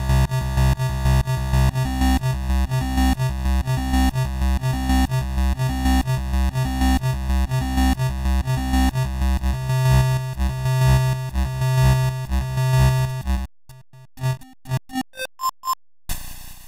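Atari ST chiptune music from the YM-2149 sound chip: buzzy square-wave melody over a repeating pulsing bass line. About three-quarters of the way through the steady music cuts off and gives way to scattered short blips with gaps between them.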